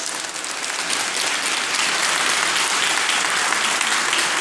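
A large church congregation applauding: dense, steady clapping that swells over the first second.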